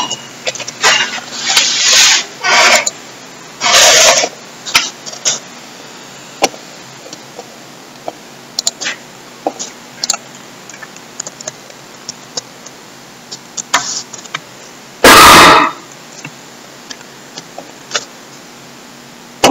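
Computer keyboard typing and mouse clicks, scattered taps with pauses between them. Several short loud rushes of noise in the first few seconds, and a louder one, about half a second long, about fifteen seconds in.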